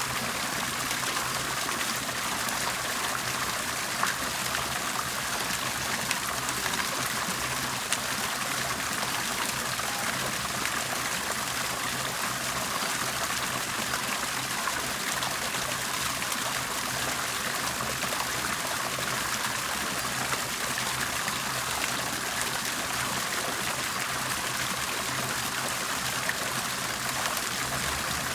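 Water bubbling and trickling steadily, with a dense patter of small splashes and gurgles.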